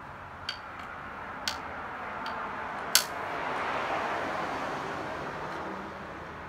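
Three sharp clicks about a second apart, the third the loudest, from a bicycle saddle and its seatpost clamp being shifted by hand while the saddle's tilt is adjusted. A soft steady noise swells and fades in the background midway.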